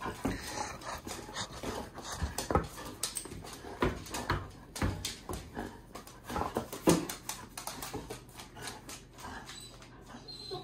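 Excited golden retriever whimpering a few times, with sharp knocks and scrabbling as she moves about on a hardwood floor.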